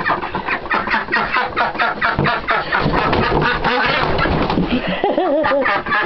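A flock of chickens and ducks calling in a coop: a rapid, continuous chatter of clucks and quacks, with a short wavering call about five seconds in.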